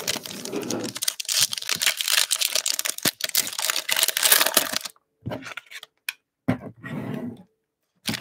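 Foil wrapper of a football trading-card pack crinkled and torn open in the hands: dense crackling for about five seconds, then a few short rustles.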